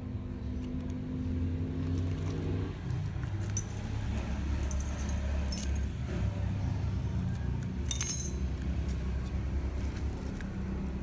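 Handling of a parcel during unboxing: small clicks and clinks, with a short, sharp crinkle of packaging about eight seconds in, over a low steady hum.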